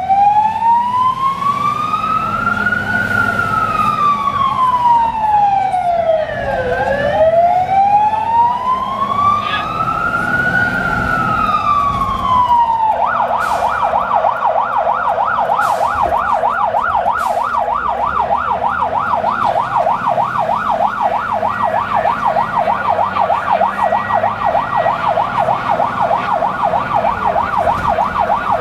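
A fire engine's siren heard from inside the cab. It gives two slow wails, each rising and falling over several seconds, then about halfway through switches abruptly to a fast yelp that carries on over the low engine rumble.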